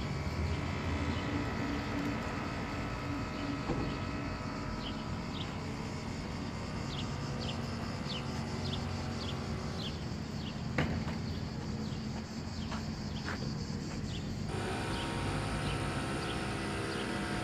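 Street traffic rumbling steadily, with a run of short, quick bird chirps over it through the middle and one sharp knock. Near the end a car engine comes up close and grows louder as it passes.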